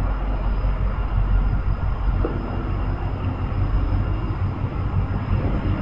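CN freight train led by two Illinois Central EMD SD70 diesel locomotives, a steady loud rumble of engines and rolling stock.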